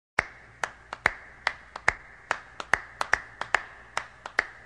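Hand percussion, sharp claps or snaps on a steady beat of about two and a half a second with quick extra hits in between, opening a vocal pop song.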